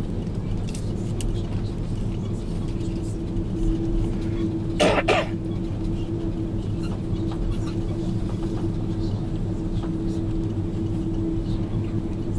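Airbus A330 cabin noise while taxiing: a steady hum from the engines at low power, with one steady tone running through it. About five seconds in, a person coughs twice in quick succession.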